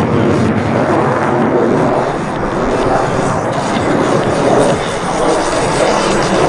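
Aircraft engine noise: a loud, steady drone of an airplane in flight.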